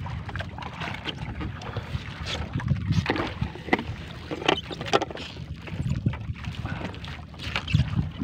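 Wet fishing net being hauled aboard an outrigger boat by hand: irregular splashes and patters of water shed by the net, with wind rumbling on the microphone.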